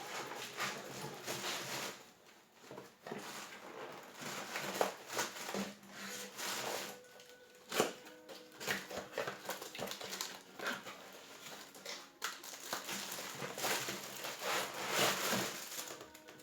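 Irregular rustling and crinkling of packaging and parts being handled while a box is unpacked, with scattered knocks and one sharp knock about eight seconds in.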